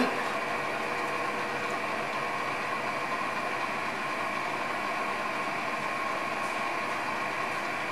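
Steady machine hum with several steady tones, unchanging throughout, with no distinct knocks or clicks.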